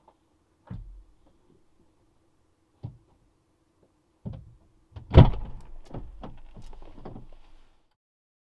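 Knocks and thumps on the car's body, heard from inside the cabin, as gear is put in at the back: three single knocks, then one heavy slam about five seconds in, followed by a couple of seconds of smaller knocks and rustling.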